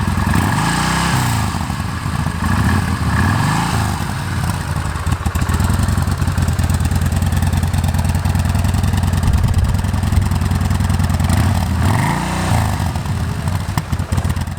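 Yamaha Bolt's air-cooled V-twin idling on its stock exhaust after a cold start, revved a few times in the first four seconds and once more near the end, the pitch rising and falling with each rev.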